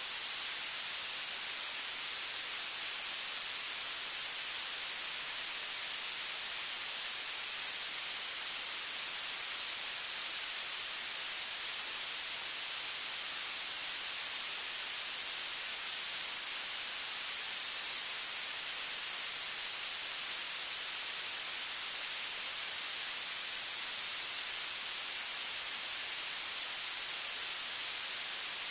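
Steady static hiss, even and unchanging, strongest in the high end, with no other sound in it.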